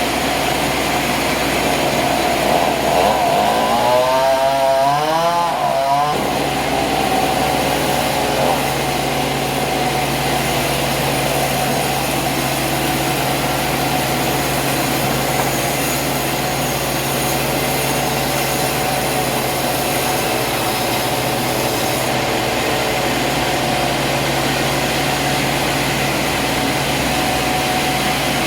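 Sawmill saw cutting through hardwood, its engine running steadily under load. A brief warbling sound comes about four seconds in.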